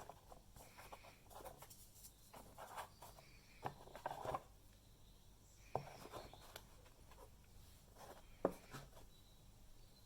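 Faint scattered handling noises: light taps, clicks and rustles, with the sharpest tap about eight and a half seconds in.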